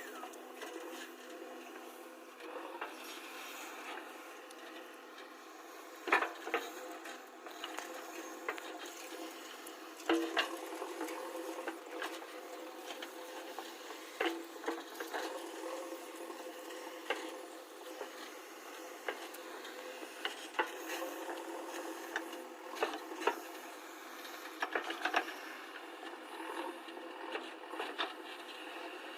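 Backhoe loader at work: a steady low engine hum under irregular sharp knocks and metallic clanks, a few of them much louder than the rest.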